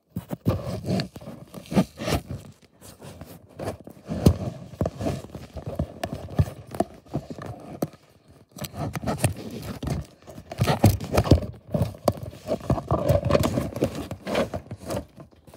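Close handling noise: irregular knocks, taps and scrapes of small dolls and a plastic toy bunk bed being moved about, with a short lull midway.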